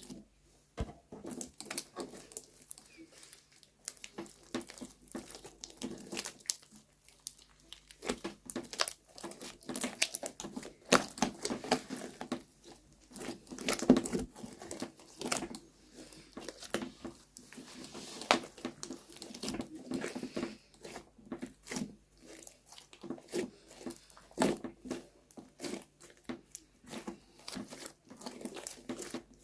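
Slime being worked by hand close up: a dense, irregular run of sticky crackles, clicks and crinkly pops.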